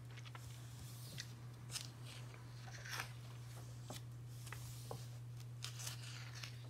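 Pages of a paperback book being turned and smoothed flat by hand: soft, scattered paper rustles over a steady low hum.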